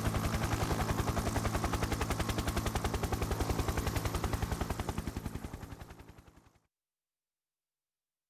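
Machine-gun fire sound effect from a home theatre test track: a long, rapid run of evenly spaced shots over a steady low rumble, stopping abruptly about six and a half seconds in.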